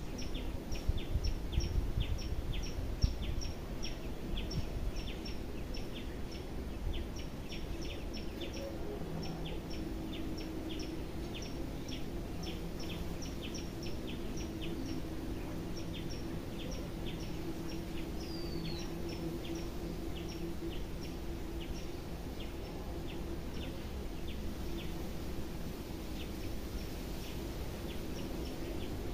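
Steady, evenly repeated high chirping, about two or three chirps a second, with a single falling call about two-thirds of the way through. A low hum runs underneath, and there is some louder low rubbing in the first few seconds.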